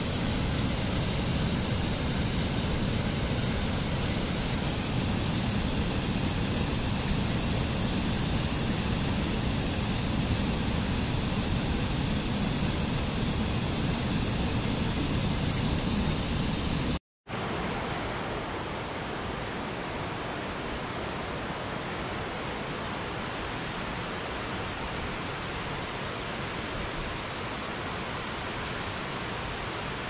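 Waterfall: a steady rush of falling water. It cuts out for a moment a little past halfway and comes back as a different, quieter stretch of water noise.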